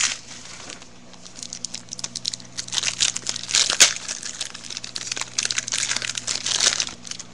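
Foil wrapper of an Upper Deck baseball card pack crinkling as it is torn open, in irregular bursts with one sharp crack about four seconds in.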